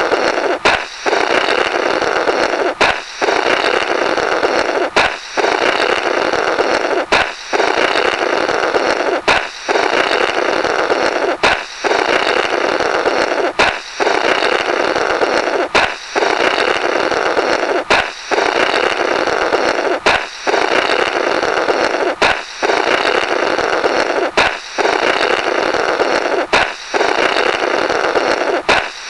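Comic 'blorrrt' sound effect: a balloon pops with a sharp crack, then someone blows a long raspy, fluttering blast through the burst rubber. It repeats about every two seconds, some fourteen times.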